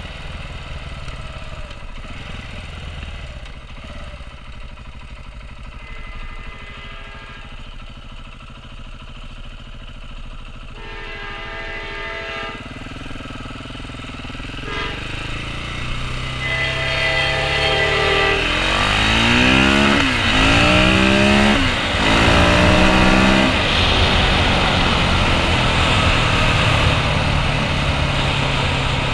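2015 KTM 690 Enduro R's single-cylinder engine running slowly and idling, then pulling away hard: the revs climb steeply three times with quick drops between them as it shifts up through the gears. After that it cruises steadily at speed with heavy wind noise over the rider-mounted microphone.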